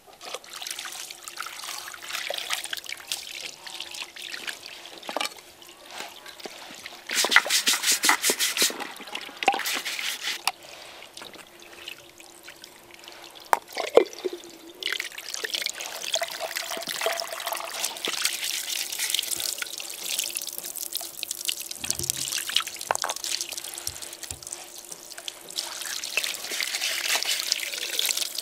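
Water running and splashing from a hose over mud-caked clay pottery, with a stiff plastic scrubbing brush rasping over the pieces in quick strokes.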